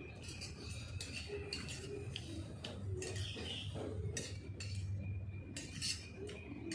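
Cutlery clinking and scraping on a plate as someone eats, in light irregular clinks.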